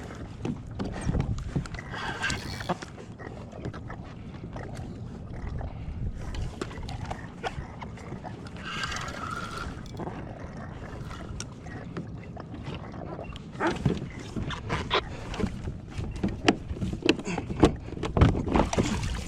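Wind and water noise on a fishing kayak at sea, with two short higher-pitched sounds about two and nine seconds in, and scattered knocks and clicks on the hull or gear in the last few seconds.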